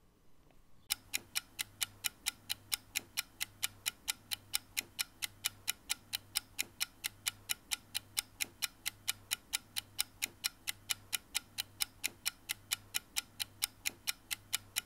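Steady clock-like ticking, about four ticks a second, starting about a second in, over a faint low pulsing hum.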